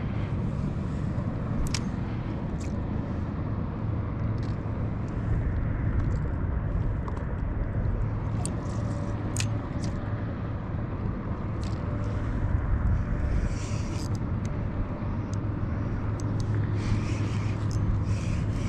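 A motor's steady low hum under a rushing noise of wind and water, with scattered light clicks and taps.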